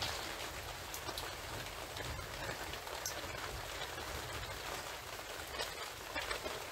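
Steady rain falling, with many individual close drops ticking sharply here and there through it.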